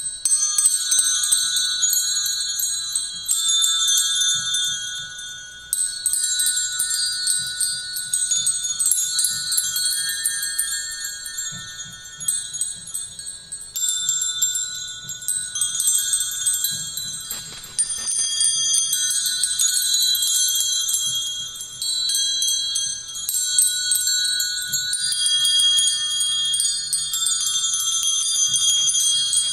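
Metal chimes ringing: clusters of high, overlapping ringing tones, with new strikes every few seconds that shimmer and die away under the next.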